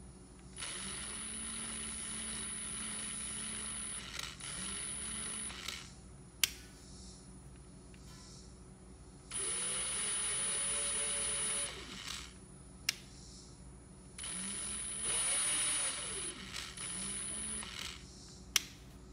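Milwaukee M18 FUEL mid-torque impact wrench (2861-20), a brushless cordless tool, running free with no load over four trigger pulls of one to five seconds each. Each run is a steady motor whine that speeds up as it starts, with no hammering. Single sharp clicks come between some of the runs.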